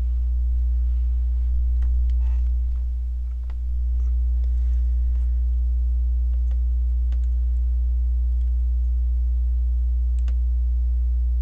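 Steady low electrical hum, like mains hum in the recording, with a few faint scattered clicks and soft rustles.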